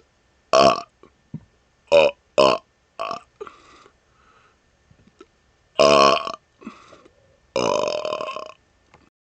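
A man burping repeatedly. There are short belches about half a second, two seconds and two and a half seconds in, and a smaller one after them. Two longer, drawn-out burps follow near six and eight seconds.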